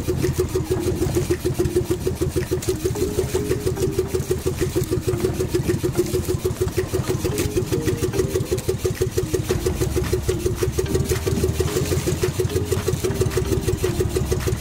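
Small outrigger fishing boat's engine running steadily at low speed, a fast, even pulse that does not change.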